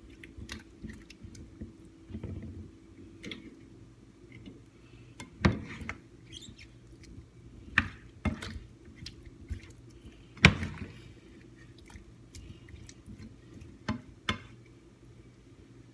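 A utensil clinking and knocking against a skillet at uneven intervals as chicken pieces are stirred into soy sauce, over a steady low hum.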